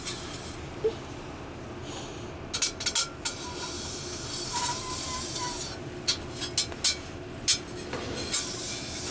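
Sharp glassy clinks and taps in clusters, about two and a half seconds in and again from about six seconds in, as hardware is handled while samples are pulled out of an oxidation furnace. A soft hiss runs through the middle.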